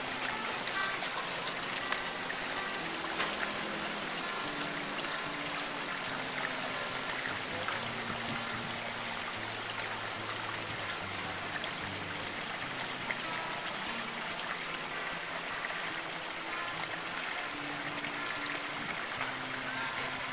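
Steady rush of flowing water, with faint low held tones underneath that change pitch every second or so.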